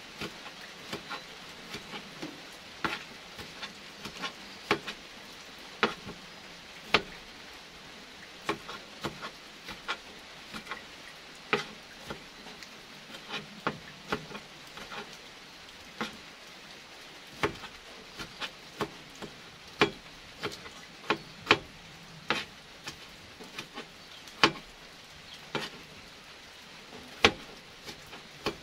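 Kitchen knife slicing tomatoes on a plastic cutting board: irregular sharp knocks of the blade hitting the board, about one or two a second, over a faint steady hiss.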